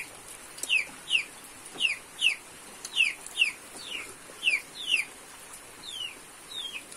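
Chicks peeping: short, falling peeps, often in pairs, about two a second.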